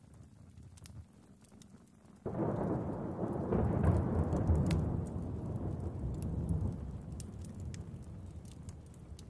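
A roll of thunder breaks in suddenly about two seconds in, swells and then slowly dies away, over faint crackling and ticking.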